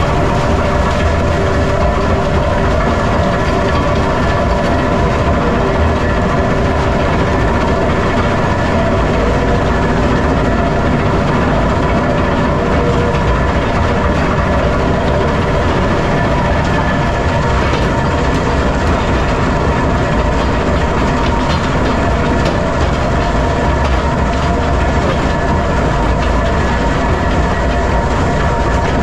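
Metso 130 jaw crusher at work with its vibrating grizzly feeder: blasted limestone clattering and tumbling over the grizzly bars into the jaw. Underneath runs a steady machine drone with a few held tones.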